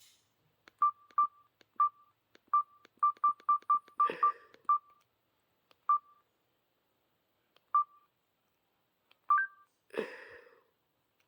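Samsung cell phone keypad beeping as its buttons are pressed: short single-pitched key tones, each with a click at the press, irregularly spaced, with a quick run of several about three to five seconds in, then sparser. Two brief louder noises, about four seconds in and near the end, stand out over the beeps.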